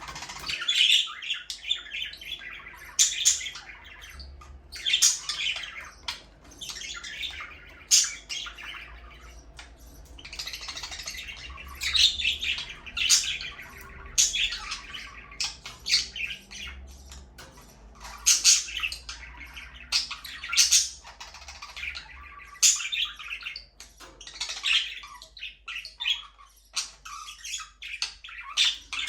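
A flock of budgerigars chirping and squawking: a busy, overlapping chatter of short, high-pitched calls with louder squawks every second or two.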